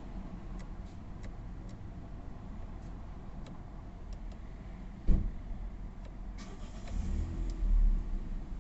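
Irregular faint ticking from a Volvo S60 D4 with a dead battery, its electrics glitching. About five seconds in comes a single sharp clunk, and near the end a louder couple of seconds of noise and low rumble.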